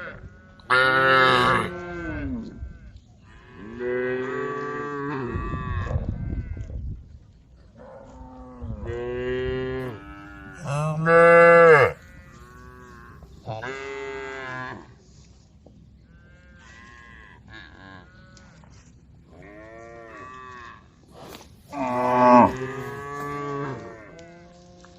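Several cows mooing one after another, about eight long moos with the loudest near the middle and near the end.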